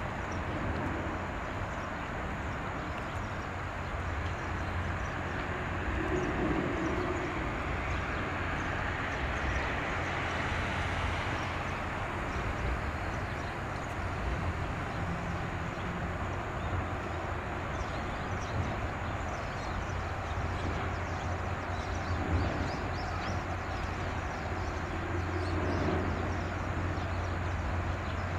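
Patrol boat running offshore: a steady low engine rumble under a broad wash of water and wind noise, with the hiss swelling for a few seconds around the middle.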